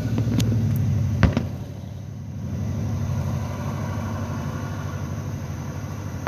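A vehicle engine idling with a steady low hum. A single sharp bang comes a little over a second in.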